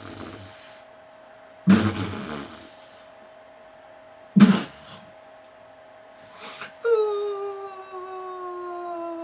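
A man's voice: short, sharp vocal bursts about two and four and a half seconds in, then a long moan that starts about seven seconds in and slowly slides down in pitch.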